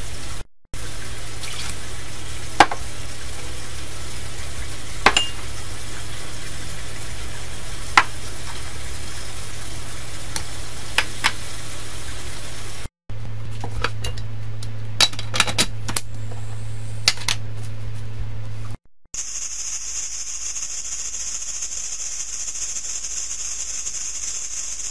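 Steady low kitchen hum with scattered light clicks and knocks as ingredients go into an aluminium pressure cooker. After a cut, the closed pressure cooker on the stove gives a steady high hiss of escaping steam.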